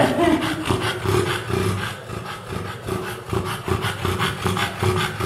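English bulldog panting hard with her mouth open, a noisy, rhythmic breath sound repeating a few times a second.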